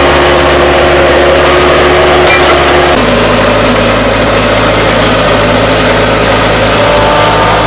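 Skid steer loader's engine running steadily. About three seconds in, the engine note changes abruptly.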